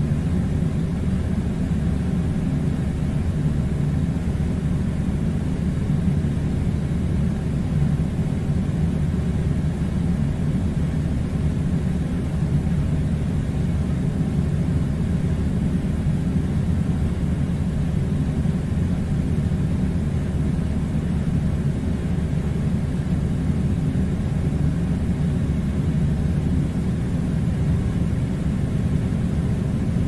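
Steady low rumbling noise, even and unbroken, with no separate events.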